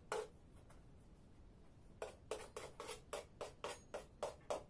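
A kitchen knife chopping along the edge of stacked rolled baklava dough onto a wooden board: two quick cuts at the start, then from about two seconds in a steady run of short chops, about four a second.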